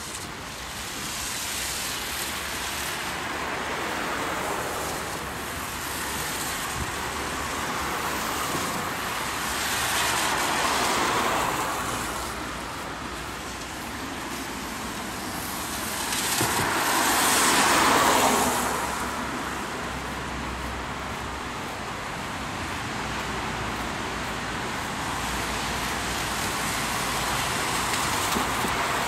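Road traffic passing on a wet road: a steady tyre hiss that swells as vehicles go by, the loudest pass about two-thirds of the way through.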